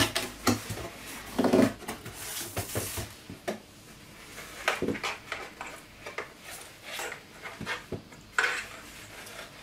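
Unpacking by hand: cardboard box flaps and a cloth-bagged welding helmet being handled and set down on a perforated steel table. Irregular rustling of card and fabric with scattered knocks and taps.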